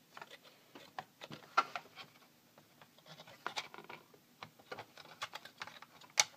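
Irregular small clicks, taps and scrapes as a laptop memory module is handled and worked into its slot, with two sharper clicks, one about a second and a half in and one near the end.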